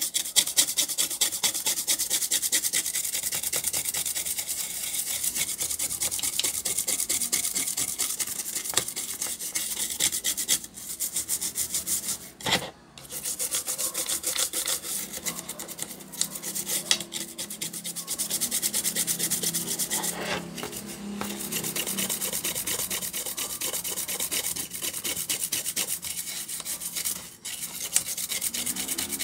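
A brush scrubbing rapidly back and forth over a graphics card's circuit board, cleaning off grime with alcohol. The scrubbing runs on with a few brief pauses.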